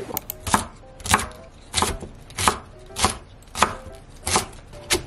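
Kitchen knife chopping cabbage on a wooden cutting board: sharp knocks of the blade hitting the board in a steady rhythm, about three every two seconds, starting about half a second in.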